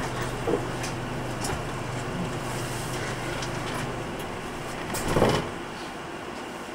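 Cabin of a 2006 Nissan Diesel Space Runner RA city bus standing still, its diesel engine idling with a steady low hum. A short, loud whoosh comes about five seconds in.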